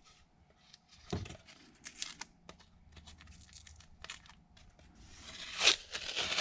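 Handling noises from the glued ABS plastic gauge pod being picked over: crinkling, scraping and light clicks, with a knock about a second in and a louder rasping rustle near the end.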